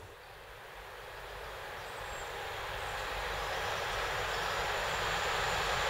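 DB Class 189 electric locomotive hauling a container freight train, approaching on the track. Its rolling noise grows steadily louder as it nears.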